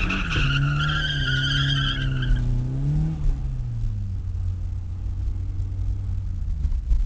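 Car engine running under power with tyres squealing for about two and a half seconds, heard from inside the car. Then the squeal stops and the engine settles to a steadier, lower hum.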